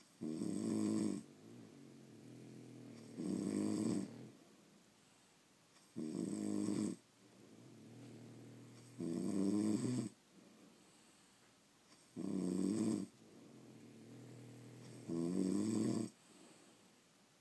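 Sleeping French Bulldogs snoring: six loud snores about every three seconds, each lasting about a second, with quieter breathing between them.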